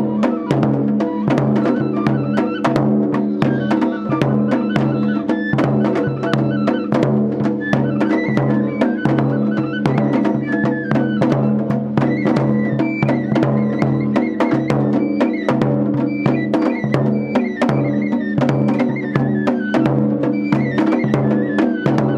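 Japanese festival music, played live: drums and sharp clicking percussion in a fast, steady rhythm under a high melody line that steps up and down.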